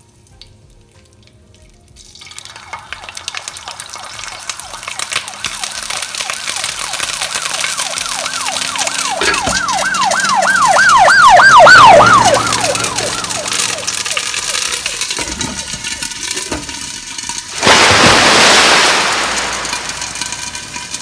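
Curry leaves crackling and spluttering in hot oil. Midway a high wavering whine, like a siren, rises and falls several times a second and then slides down. About 18 seconds in a loud burst of sizzling starts, typical of a wet paste (ginger and garlic) hitting the hot oil, and then slowly eases.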